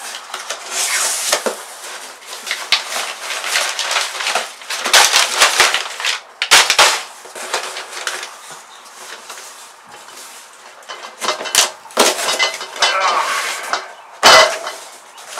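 A cardboard shipping box being opened and unpacked by hand: flaps scraping and rustling, with a few sharp knocks as an inner carton is handled and lifted out near the end.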